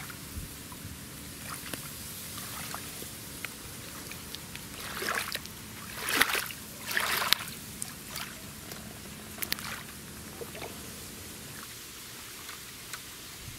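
Water lapping and trickling at a river's edge under a steady outdoor background noise, with a few short, sharp splashy disturbances near the middle.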